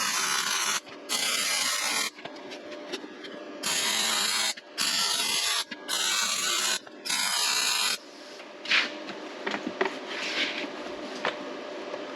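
Welder laying short welds on the steel plates and rib of a jack-mount kit: six runs of about a second each with short gaps between them, then a few light clicks and taps near the end.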